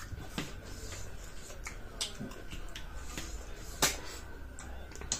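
Close-up eating sounds of someone eating snails: a handful of separate sharp smacks and clicks, the loudest a little under four seconds in.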